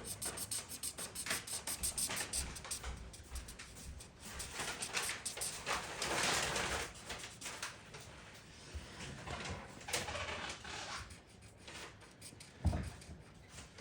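Felt-tip marker scratching and rubbing on paper in short, irregular colouring strokes, with a longer stretch of steady scribbling about six seconds in.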